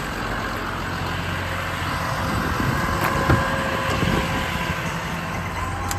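Diesel engine idling steadily, with one short sharp click a little past three seconds in.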